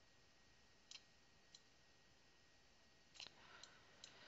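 Near silence broken by a few faint computer mouse clicks: one about a second in, another half a second later, and a few more close together near the end.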